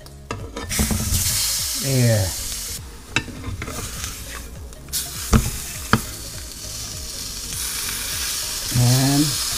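A striped bass fillet sizzling as it sears in a nonstick frying pan, while a spatula turns it and taps against the pan a few times.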